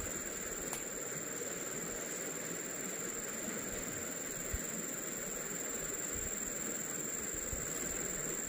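Steady riverside ambience: a constant high-pitched whine over an even hiss. A faint click comes about a second in and a short low knock about halfway.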